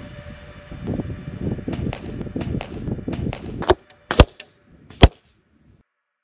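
Wind buffeting the microphone, then a few sharp cracks, the two loudest about four and five seconds in, from compound-bow arrows striking a bag target.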